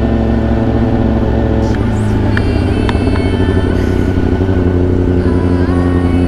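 Kawasaki ZX-10R's inline-four engine, fitted with an SC-Project aftermarket exhaust, running steadily at low road speed. A few sharp clicks come about two to three seconds in.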